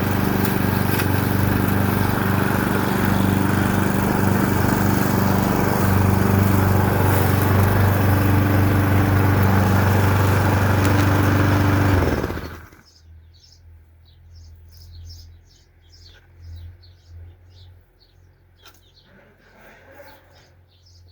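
The small engine of a garden clearing machine running steadily at speed, then shutting off about twelve seconds in. Birds chirp in the quiet that follows.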